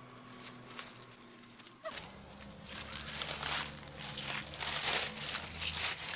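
Footsteps crunching through dry leaf litter, growing louder as someone walks up close, starting about two seconds in.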